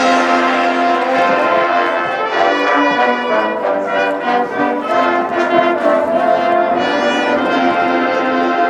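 High school marching band playing, the brass section sounding loud sustained chords that change every second or so.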